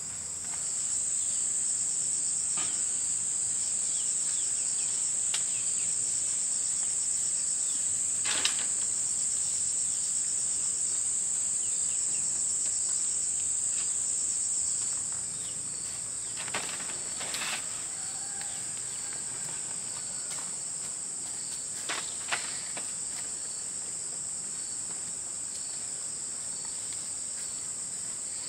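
A steady, high-pitched insect chorus that is louder for the first half and drops somewhat about halfway through, with a few faint knocks.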